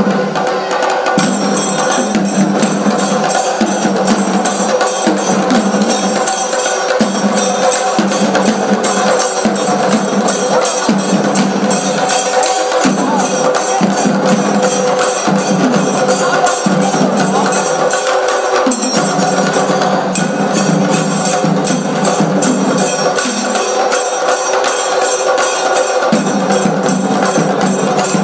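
A troupe of rope-laced barrel drums beaten with sticks, playing a fast, dense rhythm, with a steady held tone underneath.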